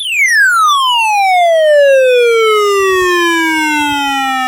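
A single loud electronic tone sliding steadily down in pitch from very high to low, falling fastest at the start.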